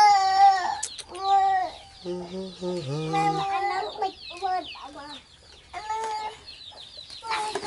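Repeated drawn-out, slightly wavering animal calls, each under a second long, with many faint high chirps in between.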